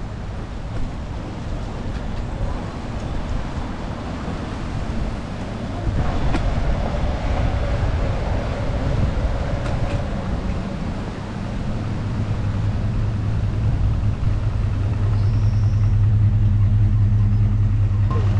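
City street traffic heard from a moving bicycle: a steady rush of road noise, with a vehicle's low engine hum growing louder over the last several seconds.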